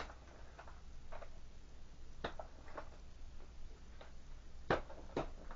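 Irregular light clicks and knocks of plastic parts of a Fluval FX6 canister filter being handled, about seven in all, the two sharpest close together near the end, as a piece that popped out is worked back into place.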